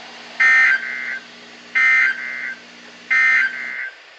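Emergency Alert System end-of-message data: three identical short bursts of two-tone digital warble, each under a second, spaced about a second and a half apart. This is the SAME code that signals the alert broadcast is over.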